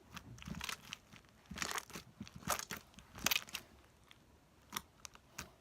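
Homemade slime being squeezed and worked by hand, giving irregular crackling, crinkly squelches about once a second, noises that usually mean something is not right with the slime.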